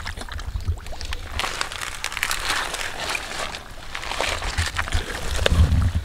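Bare hands digging and scooping through wet mud and plant roots, with irregular squelching and splashing. A low rumble runs underneath and is loudest near the end.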